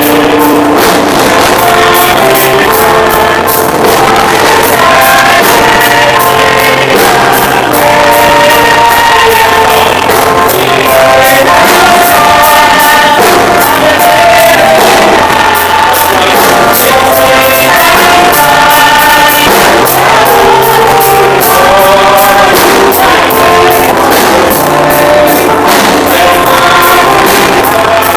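Gospel song: loud band music with a steady drum beat, keyboard or guitar and singing.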